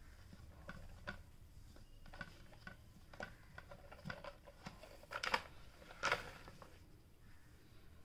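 Scattered light clicks and taps from the plastic body and floor head of a handheld stick vacuum being handled on a tiled floor, with two sharper knocks a little past the middle. The vacuum's motor is switched off.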